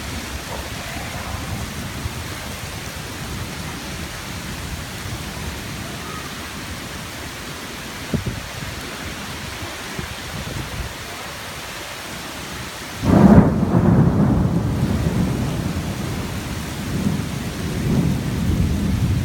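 Steady rain falling for about thirteen seconds, then a sudden loud clap of thunder about two-thirds of the way in, which goes on as deep rolling rumbles.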